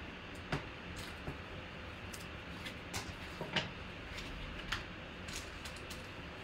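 Scattered light clicks and taps as hard plastic card holders are set down and arranged on a table, over a steady low hum.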